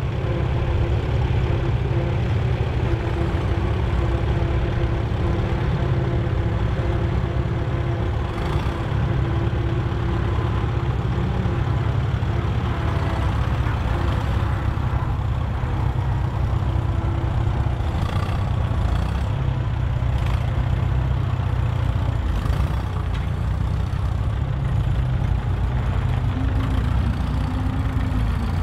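Engines of several vintage David Brown Cropmaster tractors running steadily as the tractors drive along in a line.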